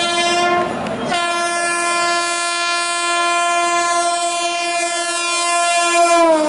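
WAP-7 electric locomotive's horn blowing as it approaches at speed. A long blast breaks off about half a second in, then a second long blast starts about a second in and holds steady. Its pitch drops near the end as the locomotive passes.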